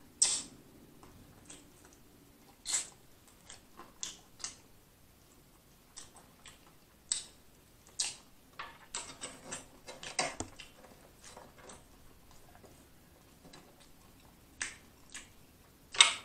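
Close-miked mouth sounds of eating: scattered wet lip smacks and sucking clicks as meat is sucked off a bone, with a quick run of them a little past halfway and one sharp smack near the end.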